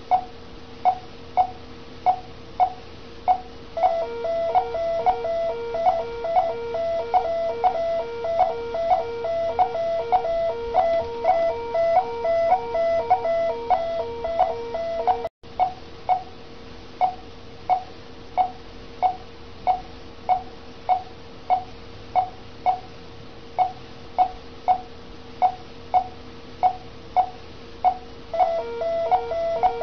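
Bedside patient monitor beeping in step with the heartbeat, a little under two short beeps a second. From about four to fifteen seconds in, and again near the end, a louder pulsing medical alarm of several stacked tones sounds over the beeps.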